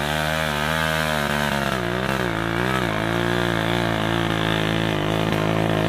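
Motorcycle engine working under a heavy load of teak logs, its note rising and falling with the throttle for the first few seconds, then holding steadier as the bike comes closer.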